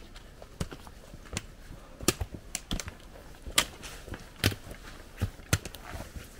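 Footsteps and trekking-pole tips on a rocky trail: irregular sharp clicks and knocks of metal tips and boots striking stone, a few a second.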